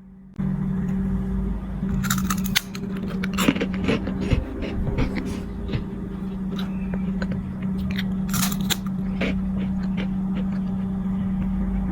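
Crisp crunching and crackling of a baby snack, in short irregular bursts, over a steady low hum.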